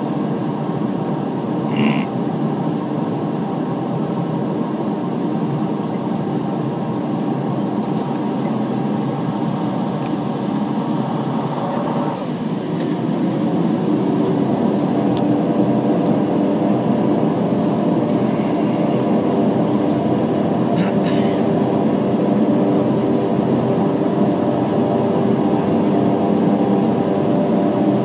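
Aircraft engine droning steadily, heard from inside the cabin; about twelve seconds in the engine note shifts and grows louder as power is increased. A few faint clicks sound over it.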